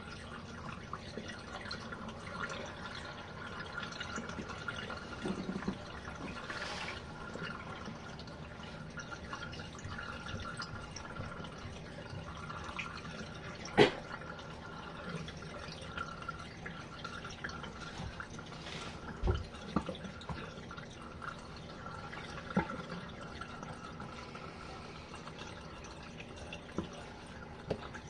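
Water running and trickling in the tub of a portable RV washing machine during a rinse, steady throughout, with a few sharp clicks and a knock about 19 seconds in.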